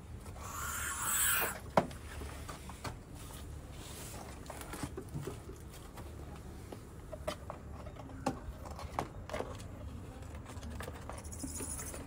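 An owl chick hissing for about the first second and a half, then a sharp click followed by scattered light taps, clicks and scrapes.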